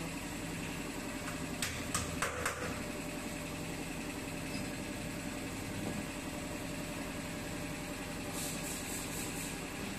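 Steady mechanical machine hum, with a few sharp clicks about two seconds in and a quick run of clicks near the end.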